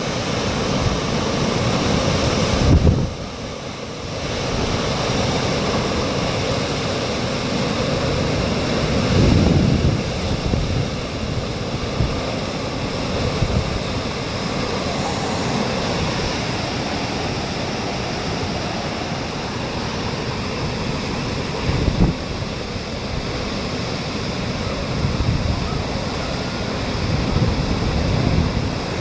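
Hurricane eyewall winds blowing hard and gusting, with wind buffeting the microphone; the gusts swell about 2 and 9 seconds in, peak sharply near the middle, and rise again near the end.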